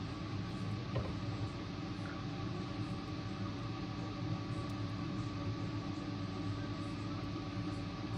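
Steady electrical hum from a refrigerator, with several constant tones over a hiss and a few faint clicks. The fan inside is not running, a sign the fridge has failed.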